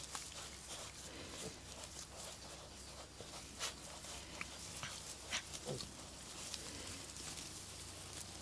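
Three-week-old piglets rooting and nibbling in grass, with soft short grunts among scattered clicks and rustles.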